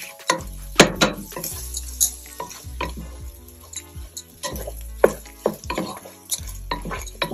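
A spoon stirring rice in a pot with irregular scrapes and knocks against the pot, over a sizzle as the rice toasts in butter with mushrooms.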